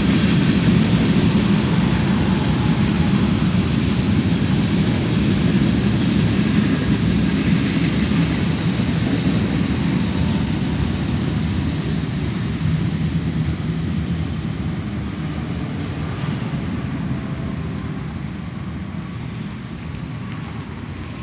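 Covered hopper cars of a Union Pacific grain freight train rolling past on the rails, a steady low rumble that fades gradually over the second half.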